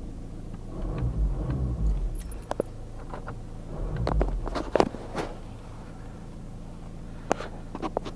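Rustling and bumping from someone moving about in a car's driver's seat, with a few sharp clicks, the loudest about five seconds in.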